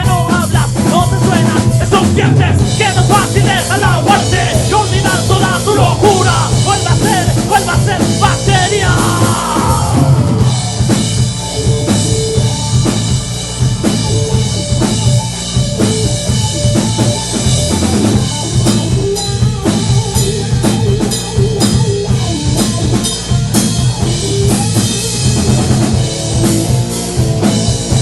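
A rock band playing live in rehearsal, with a drum kit, bass and guitars, recorded as heard in the room. A lead line with bending notes stands out for roughly the first nine seconds, and then the band carries on together.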